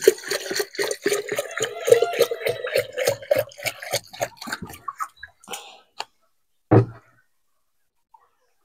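Microbial solution being poured from a container and splashing onto rice-husk bedding: a quick patter of splashes for about five seconds. A single thump comes near seven seconds.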